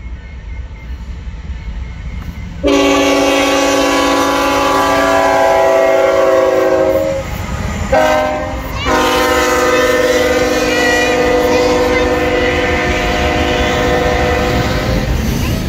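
Norfolk Southern diesel freight locomotive's air horn sounding as the train passes: a long blast, a short one, then another long blast that sounds a little lower after the locomotive goes by. The diesel engine and the wheels on the rails rumble underneath.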